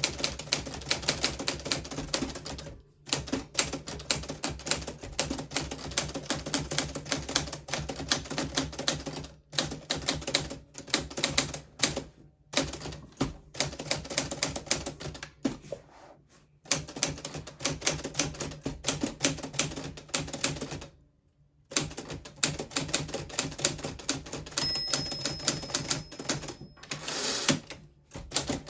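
1940s Smith Corona Silent manual typewriter being typed on: rapid runs of keystrokes broken by a few short pauses, the longest about two-thirds of the way through.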